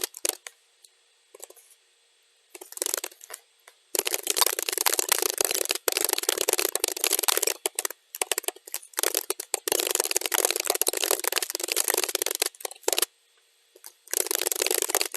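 Computer keyboard typing in fast, dense runs of key clicks, played back at double speed. Near the start there is a pause of about three seconds with only a few stray clicks, and near the end a shorter one.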